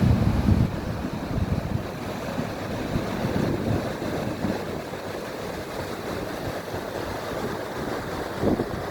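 Sea waves washing onto a beach, with wind buffeting the microphone in low gusts, strongest just after the start and again near the end.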